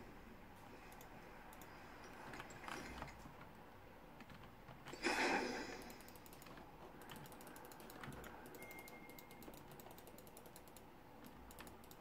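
Computer keyboard typing: faint, irregular key clicks, coming most thickly a little past the middle. A brief louder noise stands out about five seconds in.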